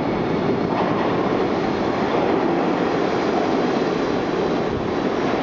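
Bombardier R62A subway train approaching through the tunnel and running into the station at speed: a steady, loud noise of steel wheels on the rails.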